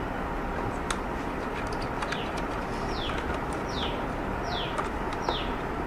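A small bird calling repeatedly, a short falling chirp roughly once a second from about two seconds in, over a steady low background rumble, with a few light clicks.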